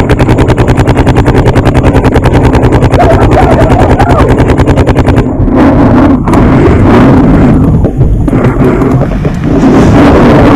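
Paintball marker firing a rapid, even stream of shots, about ten a second, for roughly five seconds, then stopping. Scattered pops and knocks follow over wind rumble on the microphone.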